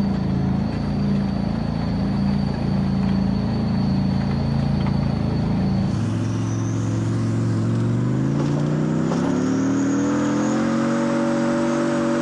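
Five-cylinder opposed-piston two-stroke diesel of a T-64 tank (5TDF) running at a steady speed. About halfway through, the sound changes abruptly to a lower note that climbs in pitch over a couple of seconds and then holds as the engine revs up.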